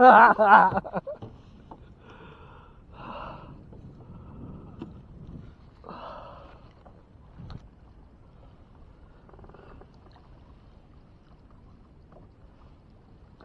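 A person's loud, excited cry, about a second long with a wavering pitch, then several short, softer breathy vocal sounds over a faint low background rumble.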